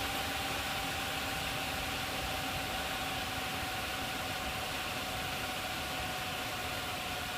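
Cooling fans of a Gigabyte GTX 760 WindForce graphics card spinning steadily: an even airy whoosh with a thin, steady whine running through it.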